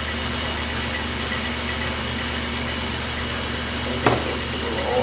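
Metal lathe driven by a converted brushed DC motor, running with a steady hum, and a single sharp knock about four seconds in.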